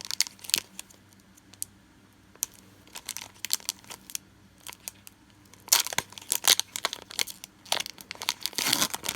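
Foil wrapper of a Pokémon booster pack crinkling and tearing as it is opened, with scattered crackles at first that grow denser and louder from about six seconds in.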